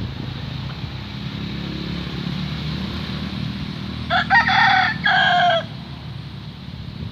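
Rooster crowing once, about four seconds in: a short crow in two parts.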